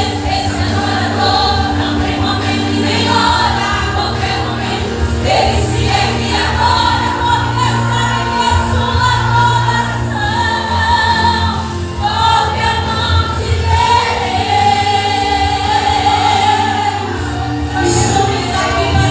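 A church vocal group singing a Portuguese gospel worship song in unison over amplified instrumental backing with steady sustained bass notes.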